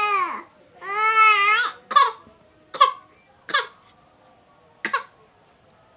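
A baby's drawn-out whiny cry ends and a second one follows, then comes a string of short, forced coughs, about four of them roughly a second apart: the baby pretending to cough.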